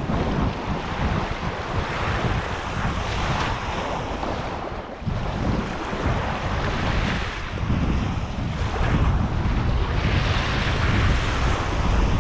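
Wind buffeting the microphone with a heavy, uneven rumble, over lake waves washing onto the shore in swells that rise and fall every few seconds.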